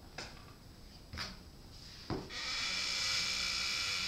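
A few soft thumps of dancers' feet on the floor, then a loud, steady hiss of electronic noise that starts abruptly just past halfway.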